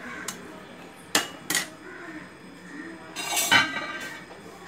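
Flat steel spatula scraping and knocking against a metal pot while turning over cooked tomato rice. A few sharp clinks come in the first second and a half, then a longer scraping clatter about three seconds in, the loudest.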